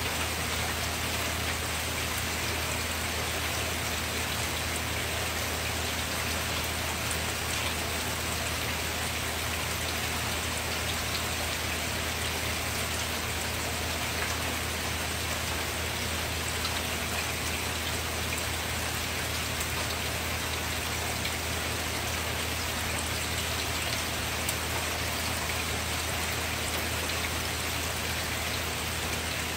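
Steady rain falling, an even hiss of rainfall with scattered individual drop ticks.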